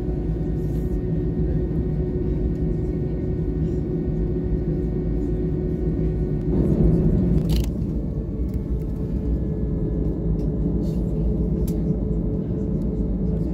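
Cabin noise of an Airbus A319 with CFM56 turbofans while taxiing: a steady low rumble with a whine of engine tones. About halfway through the sound swells briefly, there is a click, and the engine tone settles a little higher.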